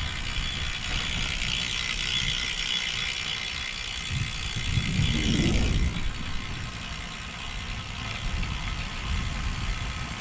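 Road bicycle's rear freewheel hub clicking as the rider coasts, over steady wind and road noise, with a low rumble swelling and fading about four to six seconds in.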